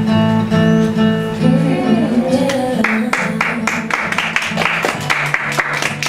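Acoustic guitar music: chords ringing out, turning to quick, even strumming about halfway through.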